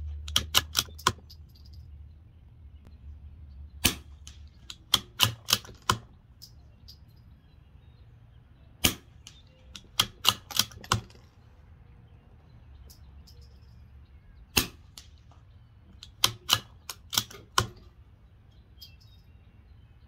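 Suppressed .22 LR shots from a CZ 457 bolt-action rifle fitted with a Sig Sauer SRD22X titanium suppressor: a muted crack roughly every five seconds, with Norma Tac-22 and then Aguila subsonic ammunition. Each shot is followed about a second later by a quick run of three or four metallic clicks as the bolt is worked.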